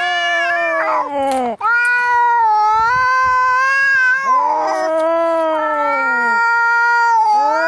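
Angry cats caterwauling in a fight: long, wavering yowls in overlapping voices, which break off briefly about a second and a half in.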